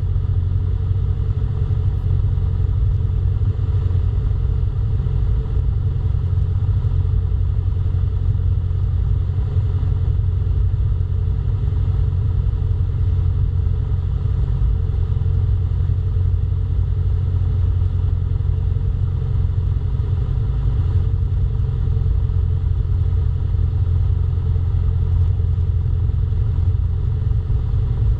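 Cessna 172 Skyhawk's piston engine and propeller droning steadily, heard from inside the cabin in flight.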